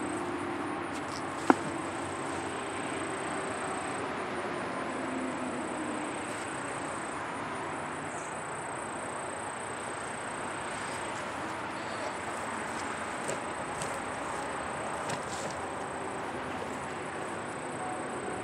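Outdoor background: insects trilling in a high thin tone that stops and starts, over a dull hum of distant traffic, with one sharp click about a second and a half in.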